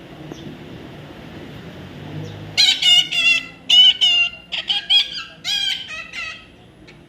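A parrot giving a rapid series of loud, harsh calls with wavering pitch. The calls start about two and a half seconds in and go on for about four seconds.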